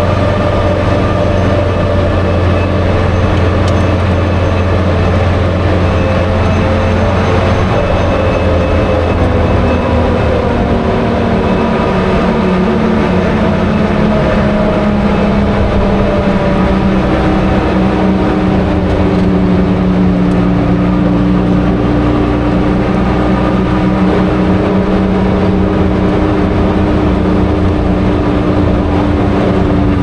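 Daimler Ferret Scout armoured car under way, its Rolls-Royce B60 straight-six petrol engine and drivetrain running steadily with several humming tones. Partway through, the engine note falls in pitch and then holds steady at the lower pitch.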